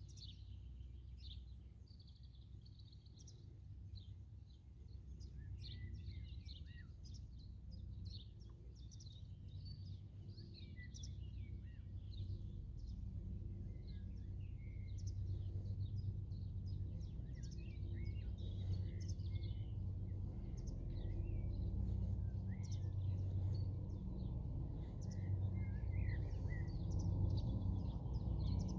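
Distant formation of military helicopters, UH-60 Black Hawks, their low rotor drone pulsing steadily and getting louder as they approach. Small birds chirp throughout.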